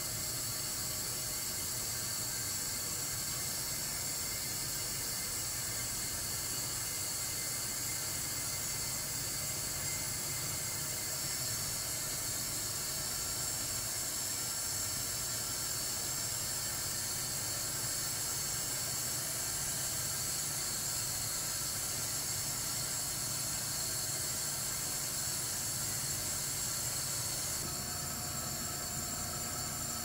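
Steady hiss with a low hum underneath, from an LG system air conditioner's outdoor unit running.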